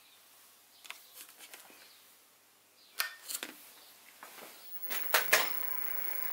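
Several sharp metallic clicks and knocks from handling the mini mill's controls, then about five seconds in the Sieg SX2P mini mill's motor starts and runs with a steady whine.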